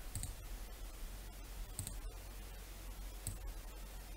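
Faint computer mouse clicks, three of them about a second and a half apart, over a low steady room hum.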